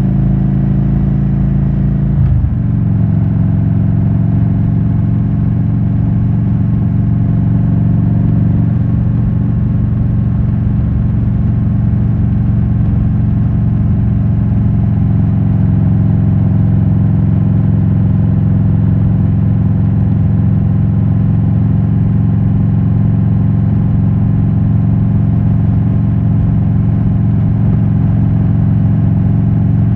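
2007 Harley-Davidson Road King Classic's 96-cubic-inch Twin Cam V-twin running through Rush Big Louie mufflers while riding. Its note drops abruptly about two seconds in, as with an upshift, then holds at a steady cruising pitch.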